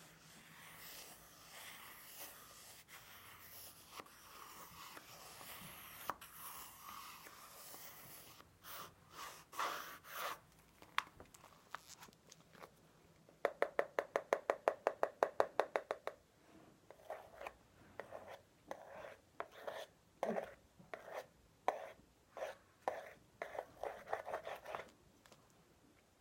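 Pencil drawing on a notepad, held close to the microphone: steady scratching for the first several seconds, then separate strokes, with a fast even run of back-and-forth strokes about halfway through.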